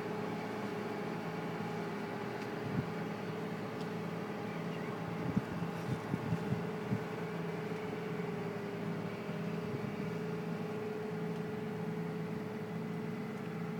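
The motor of a field harvesting machine with a conveyor belt, running at a steady, even hum. A few short knocks come about halfway through.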